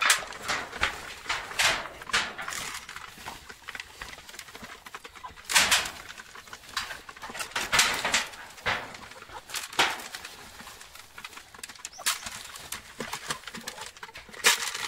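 Domestic hens feeding in a coop, with irregular sharp pecking clicks and rustling and some chicken vocalising. The loudest clicks come about a third, half and nearly the whole way through.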